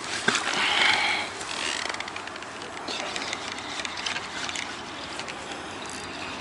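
Steady hum of road traffic from a nearby highway. About half a second in there is a sharp knock, followed by a short noisy burst.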